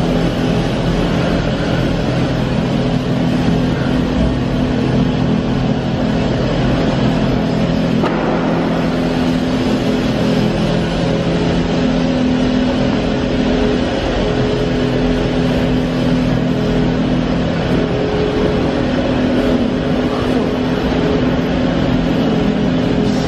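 Doosan DBC130II CNC horizontal boring mill's motors and pumps running: a steady mechanical hum with several low steady tones.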